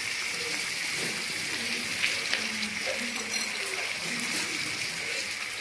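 Raw chicken pieces sizzling in hot oil among fried onions in a frying pan, a steady hiss.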